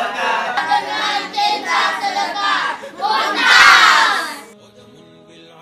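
A group of boys calling out together, rising to a loud cheer about three seconds in that cuts off suddenly near the end.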